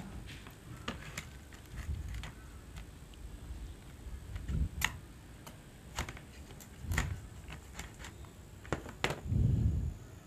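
Kitchen knife cutting into a sea squirt on a ceramic plate: scattered sharp clicks of the blade against the plate, with a few dull knocks as the plate and the animal are handled.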